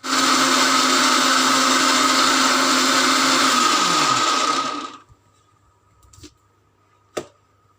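Electric mixer grinder (mixie) grinding soaked wheat with water, running loud and steady for about five seconds, then switched off and winding down. A single sharp knock follows near the end.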